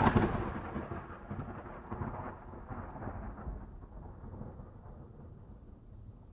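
Thunder rolling on after a clap: a deep rumble that starts loud and fades away over about four seconds, swelling briefly a couple of times on the way down.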